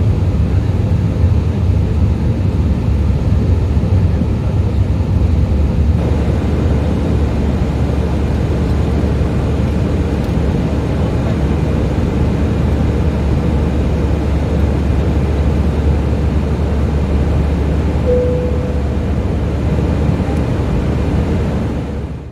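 Steady cabin noise inside a jet airliner climbing after take-off: engine and airflow noise, a deep rumble with a faint steady hum over it.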